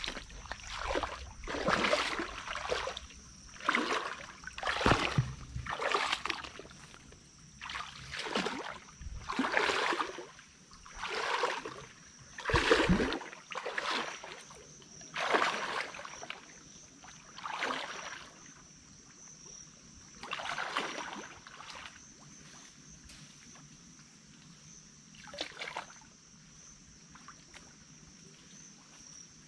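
Footsteps and rustling through dry leaf litter and undergrowth, a swish every second or so, growing sparse after about twenty seconds. A steady high whine runs underneath.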